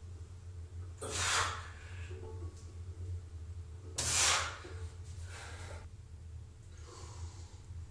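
A weightlifter's forceful hissing breaths between front-squat reps, short and spaced one to three seconds apart, the loudest about one and four seconds in, over a steady low hum.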